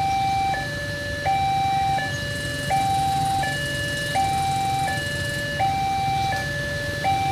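Railway level-crossing warning alarm sounding its two-tone electronic chime: a higher and a lower note alternate evenly, each held about two-thirds of a second.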